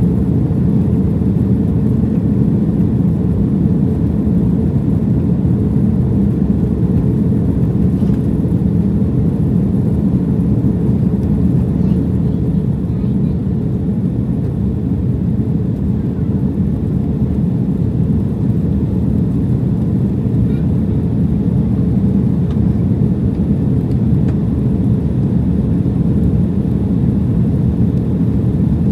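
Steady low rumble of an Airbus A330-203 jet airliner in operation: engine and airflow noise, even in level throughout.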